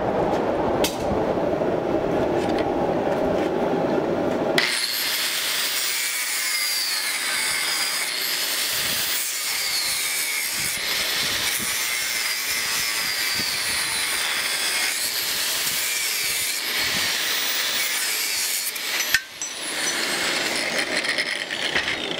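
Handheld angle grinder with a thin cut-off wheel cutting through the steel of a forged knife blank held in a vise: a harsh, high grinding noise with a wavering whine. It drops out for a moment near the end and starts again. For the first four seconds or so there is a lower, steady machine noise that cuts off abruptly.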